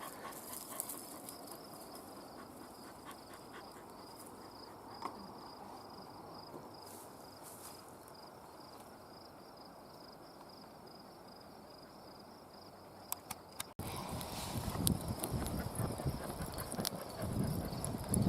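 An insect, cricket-like, chirping in a steady, evenly repeated high note over faint outdoor hiss. About fourteen seconds in the sound cuts, and louder rustling and knocking noise follows.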